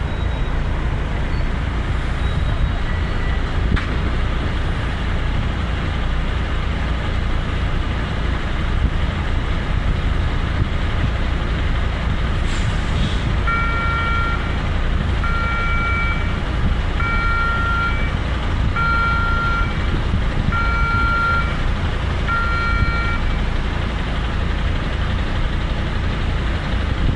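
Steady low rumble of idling heavy vehicle engines. About halfway through, a truck's reversing alarm gives six long beeps, about one every one and a half seconds, then stops.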